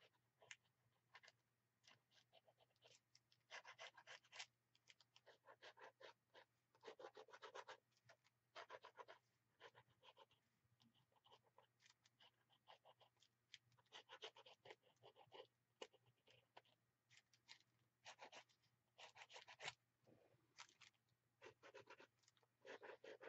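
Faint scratching of a gel pen scribbling quick strokes over a paper journal page, in short runs with brief pauses between them.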